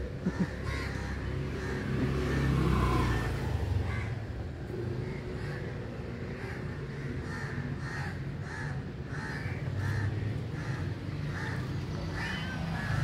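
Crows cawing over and over in short calls, about one or two a second, over a low rumble.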